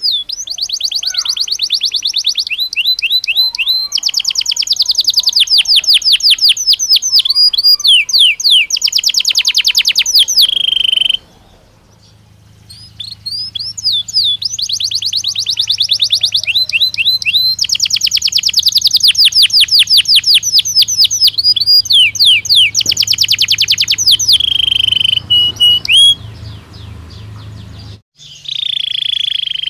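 Belgian canary singing long phrases of fast trills and rolled notes, breaking off about eleven seconds in and again near the end before starting up once more. A faint low hum sits under the second phrase.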